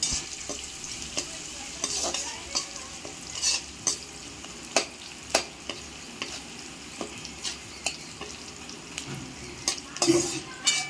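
Sliced onions sizzling in hot oil in an aluminium kadhai, stirred with a perforated metal ladle that scrapes and clinks against the pan at irregular intervals.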